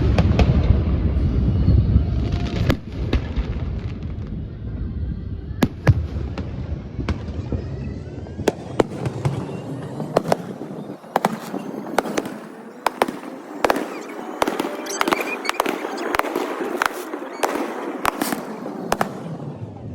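Fireworks going off: a string of sharp bangs with a heavy low rumble in the first few seconds, then thick crackling with bangs one after another through the second half.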